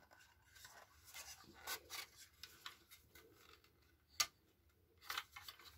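Small hard-plastic toy shop being handled and its stiff sliding side panel worked, making faint rubbing and scattered small clicks. One sharper click comes about four seconds in.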